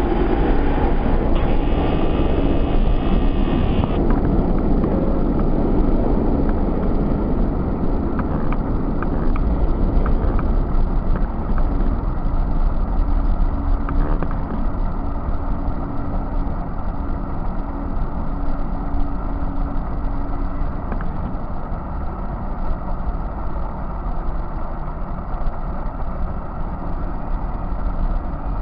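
R46 subway train pulling out and running off down the tunnel: a steady rumble of wheels on rails and traction motors, with a few sharp clicks about a third of the way in, fading gradually as it goes.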